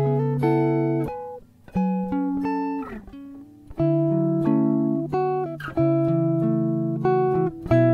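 Background music: a plucked guitar playing a slow melody with chords, each note ringing and fading, with brief pauses between phrases.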